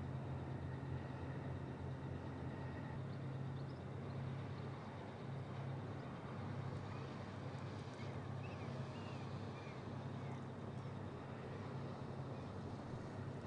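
A steady low engine hum over even outdoor background noise, with a few faint high chirps about eight to ten seconds in.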